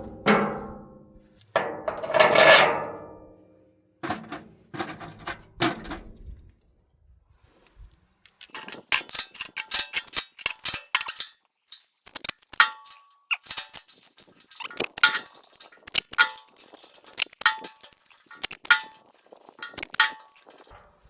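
Metal tools and parts being handled: a few loud, ringing metal clangs in the first few seconds, then a long run of quick metallic clicks and clinks.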